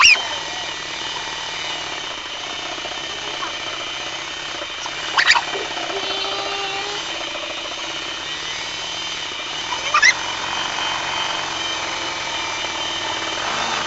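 Homemade scroll saw switched on and running steadily, its motor and reciprocating blade making a constant mechanical buzz. A brief sharp sound comes about five seconds in and another about ten seconds in.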